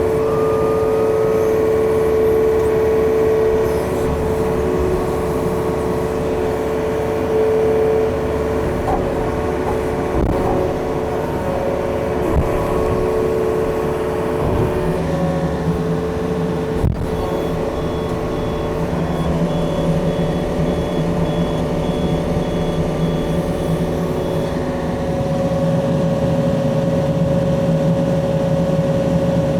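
Yanmar diesel engine of a working demolition machine running steadily, its pitch shifting a few times as the machine works. A faint regular beeping is heard through the middle of the second half.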